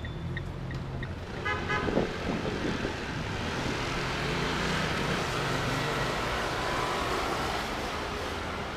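City street traffic: cars and motor scooters passing through an intersection, with a short car horn toot about a second and a half in.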